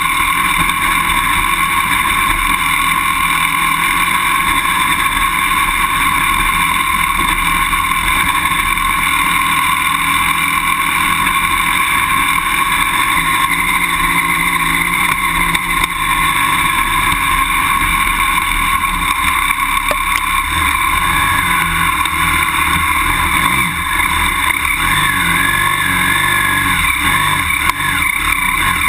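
BMW F800GS motorcycle's parallel-twin engine running steadily as the bike climbs a grassy slope, its note wavering a little near the end.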